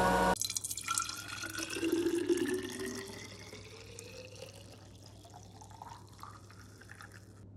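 Juice poured from a pitcher into a glass bottle, the splashing rising steadily in pitch as the bottle fills, growing quieter after about three seconds. A steady machine hum cuts off just before the pour.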